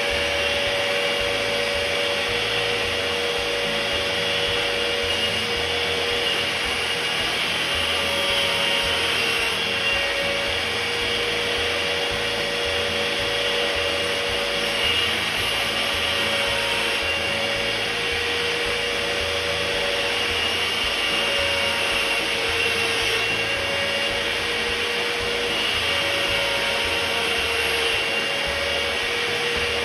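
Small electric power tool running steadily with a whine, spinning a diamond sharpening bit while a steel ACP-sheet grooving cutter is held against it to sharpen its teeth. The pitch of the whine shifts a little now and then.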